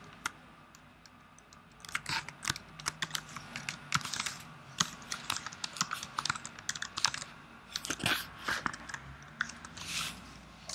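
Typing on a computer keyboard: irregular key clicks that start about two seconds in and run on in quick bursts.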